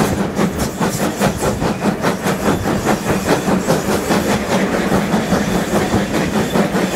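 Steam locomotive running under power, its chimney exhaust beating quickly and evenly at about five beats a second over a constant rumble of the moving engine.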